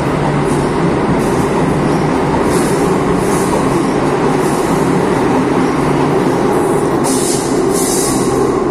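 Madrid Metro train pulling out of the station and running into the tunnel: a steady loud rumble with short high hissing sounds coming and going several times.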